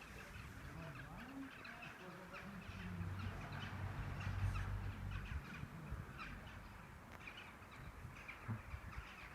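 Quiet outdoor ambience with birds calling and a low hum that swells and fades in the middle.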